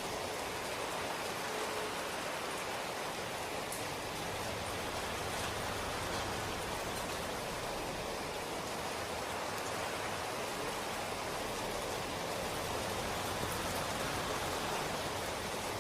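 Steady rain falling, an even hiss of many drops with a few faint individual drop ticks.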